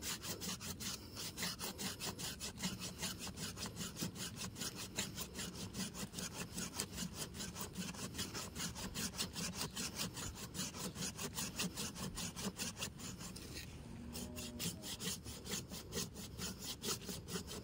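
Curved pruning saw cutting through a thick ileng-ileng root about 12 cm across, in a rapid, even rhythm of back-and-forth strokes, several a second; the blade bites on both the push and the pull.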